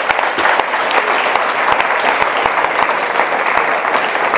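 Audience applause, many hands clapping steadily.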